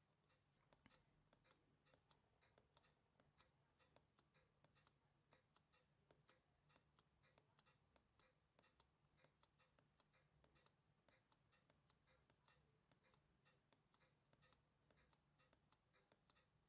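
Faint, rapid, even ticking of the Zodiac Kingline 36000 chronometer's mechanical watch movement running.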